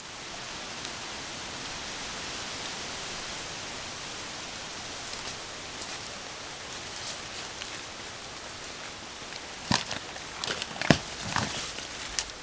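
A steady, even hiss, then footsteps crunching and snapping through dry fallen leaves and twigs, starting about ten seconds in.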